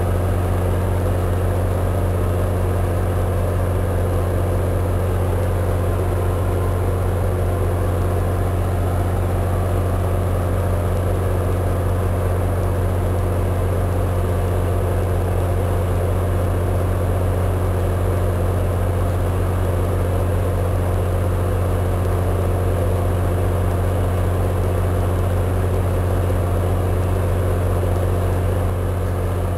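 Steady low drone of a commuter train standing at the platform, its locomotive and onboard equipment running at idle, easing off slightly near the end.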